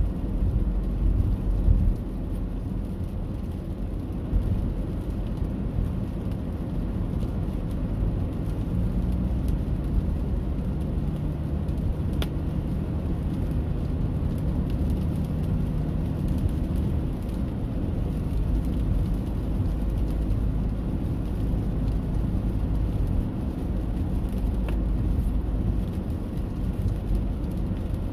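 Steady rain heard mostly as a deep, even rumble, with a single sharp tick about twelve seconds in.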